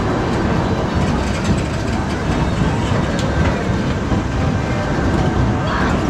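Spinning tub ride running: a steady rolling rumble from the cars and machinery.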